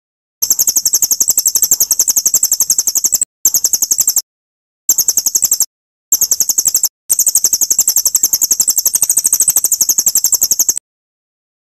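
White-rumped shama (murai batu) song-training recording: a rapid, high-pitched trill of about eight notes a second, chopped into five stretches by abrupt edits with dead silence between them.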